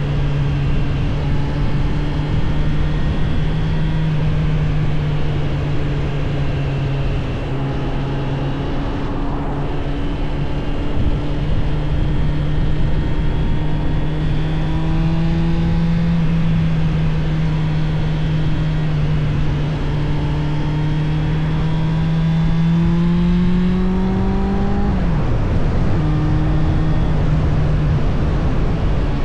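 Suzuki GSF 600 Bandit's air/oil-cooled inline-four engine running at steady cruising revs over wind rush. Its pitch creeps slowly up, then drops sharply about 25 seconds in and settles back to a steady note.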